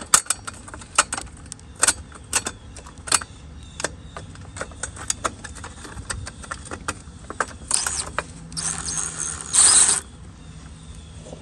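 Irregular small metallic clicks and taps as the screws of a Ford Mustang II headlight retaining ring are placed and started with a magnetic screwdriver bit. A harsher noisy burst lasting about two seconds comes near the end.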